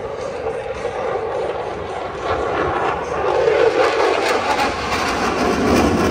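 Military jet making a low pass: the engine noise swells to a loud rush with some crackle, and its tone drops as the jet goes by.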